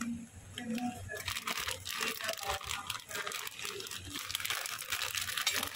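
Plastic packaging crinkling and crunching as it is handled, a dense steady crackle starting about a second in.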